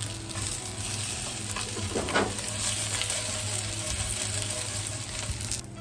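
Food frying and sizzling in a pan while it is stirred, with a few utensil clicks about two seconds in. The sizzle cuts off suddenly near the end.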